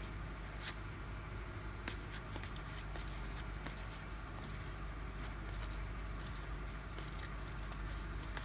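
Baseball trading cards being handled and flipped through by hand: irregular light clicks and soft rustling of card stock, over a low steady hum.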